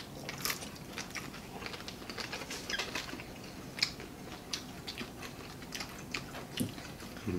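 Mouth sounds of people eating by hand: chewing and lip-smacking, heard as irregular small wet clicks and snaps, a few each second.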